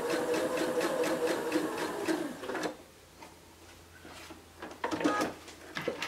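Electric sewing machine stitching a curved seam at a steady, even rhythm. It stops about two and a half seconds in, followed by a few soft clicks and rustles as the fabric is handled.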